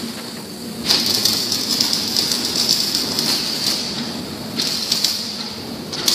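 Vacuum membrane press machinery humming steadily, with a long rush of hissing air starting about a second in and another starting near the end.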